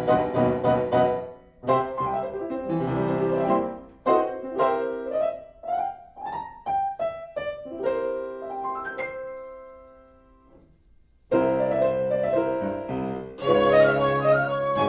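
Solo piano music accompanying a silent film: phrases of chords, then a run of short separate notes. The playing dies away almost to silence about ten seconds in, then comes back loud with fuller chords.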